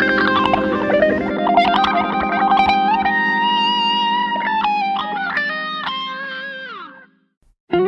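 Background music: an electric guitar with effects playing sustained chords and sliding melody lines, fading out about seven seconds in, then starting again right at the end.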